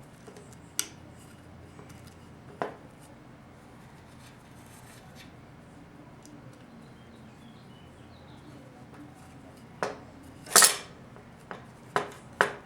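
Sharp metallic clicks and knocks of 4L60E transmission pump parts being handled and pushed into the aluminium pump body. There are two isolated clicks early, then a quick cluster of knocks near the end, the loudest about ten and a half seconds in.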